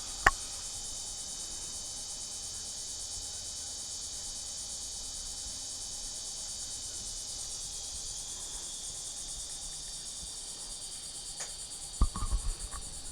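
Steady high-pitched chirring of a cricket chorus, with a sharp click just after the start and a few louder knocks near the end.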